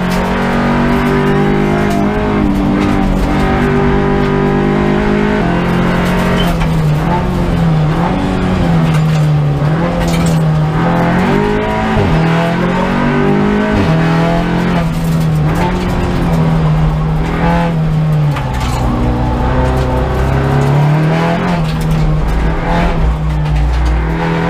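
Audi RS3 LMS race car's engine heard from inside the cabin on a fast lap, its note repeatedly climbing and then dropping as it shifts through the gears.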